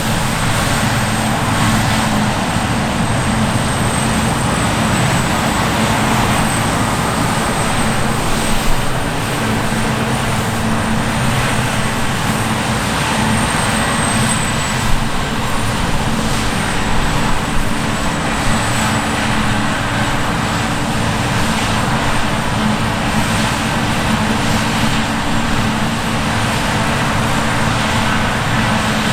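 Heavy harvest machinery running steadily: a continuous engine drone with a faint high whine above it and no break in the noise.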